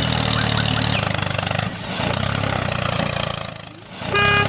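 A small engine running steadily with a low hum, dipping briefly about two seconds in and fading out after about three and a half seconds. A short horn-like beep starts near the end.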